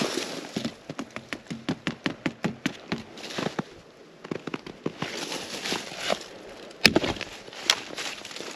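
Dry dead standing wood being broken off by hand: a run of small crackles and creaks, then a loud sharp snap about seven seconds in and another just under a second later.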